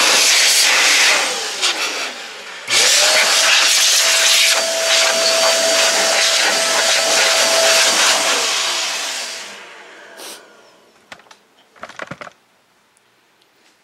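Sin Shine electric air duster blowing, a loud rush of air over a steady motor whine. It spins down about a second in with a falling whine, starts again just before three seconds with a quick rising whine, runs about five seconds and winds down again. A few light handling clicks and knocks follow near the end.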